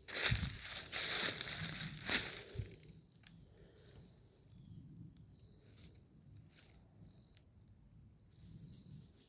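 Footsteps crunching through dry leaves and snapping small sticks for the first few seconds, then the walking stops. After that there are only a few faint light ticks and a thin, steady high tone.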